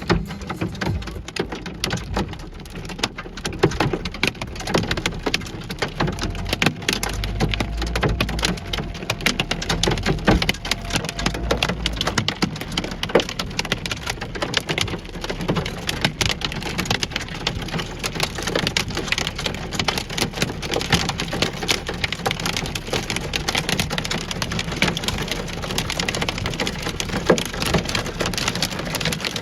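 Hailstones pelting down in a dense, continuous clatter of sharp impacts. A low rumble joins in about six seconds in and dies away about twelve seconds in.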